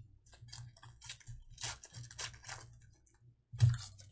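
Foil wrapper of a trading-card pack being torn open and handled, a run of quick crinkling crackles, with one louder knock about three and a half seconds in.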